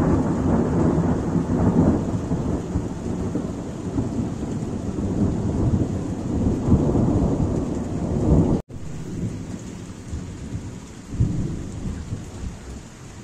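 Thunder rolling and rumbling over steady rain in a strong thunderstorm. The sound cuts out for an instant about eight and a half seconds in, then the rumbling goes on more quietly with one more swell.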